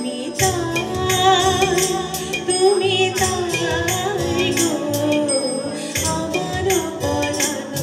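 A woman singing with vibrato into a microphone over a live band of tabla, keyboards and bass guitar, with steady sharp percussion strokes.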